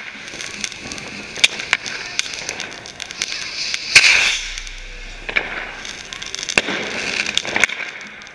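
A firework rocket set in a bottle: its lit fuse hisses and sputters, then about four seconds in it launches close by with a loud whoosh. Sharp cracks of other fireworks go off throughout.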